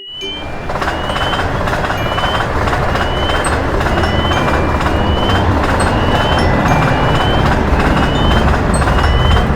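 Level crossing warning signal sounding a short rising electronic chirp about every 0.7 s, over the loud noise of a train passing, which builds up over the first seconds and stays loud.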